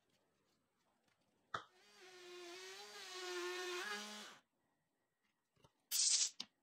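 A compact trim router running with a steady whine for about three seconds as it cuts a wooden ring on a circle-cutting jig, then cutting off. Near the end comes a short hiss from a compressed-air blow gun clearing the dust.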